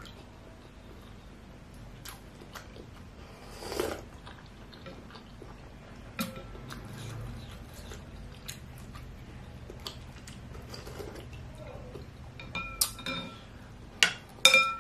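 Close-up eating sounds: chewing and a short slurp of bakso broth, with a spoon clicking lightly against a ceramic bowl. Near the end come several sharp, ringing clinks of cutlery on dishware.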